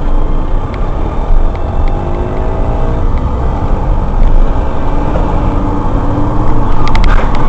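A road vehicle driving, with steady engine and road rumble and a faint engine note that shifts in pitch. A few sharp clicks come near the end.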